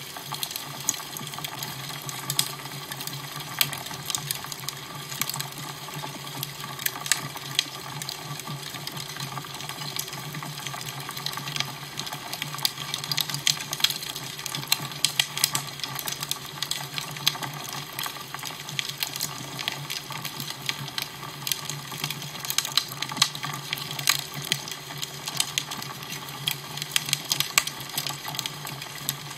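Fire crackling, with frequent small irregular pops over a steady hiss and a low hum.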